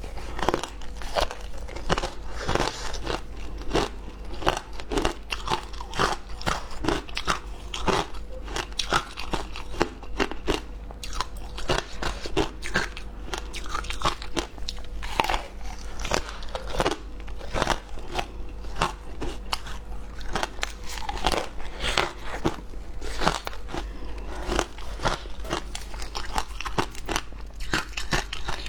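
A person biting into and chewing frozen flavoured ice: sharp, irregular crunches, several a second, with continual chewing.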